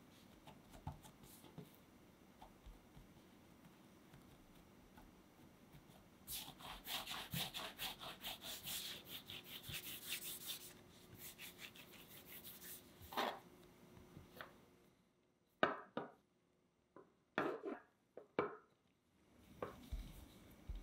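Hands rolling bread dough into a long rope on a countertop: a run of quick rubbing strokes lasting about four seconds, then several short, light knocks against the counter.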